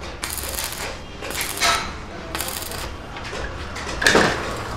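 Arc welding with a stick electrode: the arc crackles and sizzles in several short bursts as a part is welded inside a stainless-steel tandoor body. About four seconds in there is a louder knock.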